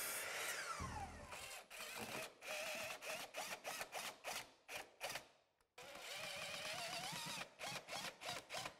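Bosch 12-inch mitre saw blade spinning down after a cut, its whine falling in pitch over the first second. Then a Ridgid cordless impact driver driving a screw into a 2x4, hammering in short spells, with a brief stop a little past the midpoint before it runs on.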